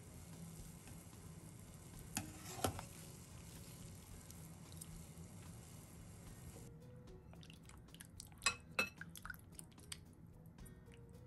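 Pot of water at a rolling boil, bubbling and hissing steadily as pieces of sea bream are dipped in to blanch, with two sharp clinks about two seconds in. About two-thirds through this gives way to water splashing and dripping as the blanched fish is rinsed by hand in a bowl of water to rub off the slime, with two louder splashes near the end.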